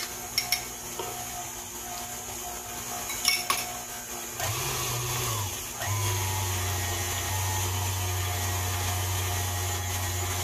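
Stand mixer motor switching on about four seconds in and then running at a steady hum as its wire whisk beats cake batter. Before it, a few light clinks of a metal spoon on a glass measuring cup.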